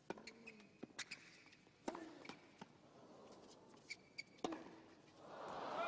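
Tennis rally on a hard court: crisp racket strikes on the ball roughly a second apart. Near the end the crowd noise swells as the point is won.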